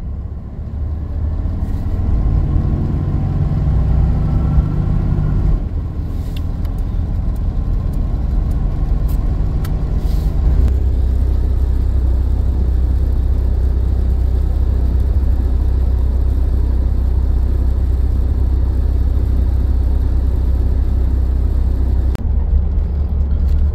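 Road noise of a camper van driving at highway speed, heard from inside the cab: a steady low drone of engine and tyres. For a few seconds near the start a pitched engine note rises, then the sound settles into an even drone.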